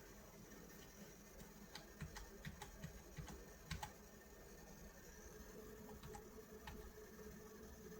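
Faint, irregular light clicks, a cluster of them in the first half, over near silence; a faint steady hum comes in about halfway through.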